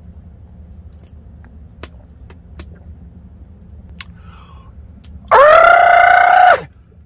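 A man gulping beer, with a few faint clicks, then a loud, high-pitched "kyaa!" cry after the drink. The cry is held for about a second and drops in pitch as it ends.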